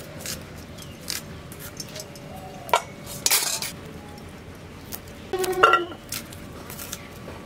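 Small clicks and crackles of onion and garlic being cut and peeled by hand, with clinks from a stainless steel bowl. The loudest is a ringing clink about five and a half seconds in, as garlic cloves go into the bowl.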